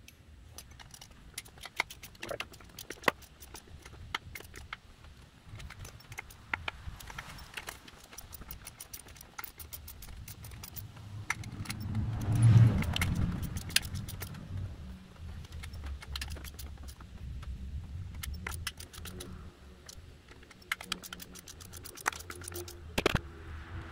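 Ratchet wrench and socket clicking and clinking in short runs as the sump bolts are backed out of an upturned Briggs & Stratton single-cylinder engine. About twelve seconds in, a low rumble swells and fades.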